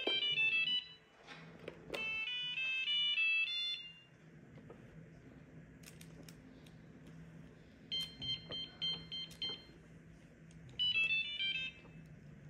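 iRobot Braava 380t robot mop playing its electronic beep tunes: a short falling run of tones as its button is pressed, a longer tune about two seconds in, a rapid string of pulsed beeps about eight seconds in, and another short falling run near the end. It powers on and then shows a red fault light, which the owners put down to a battery that needs replacing.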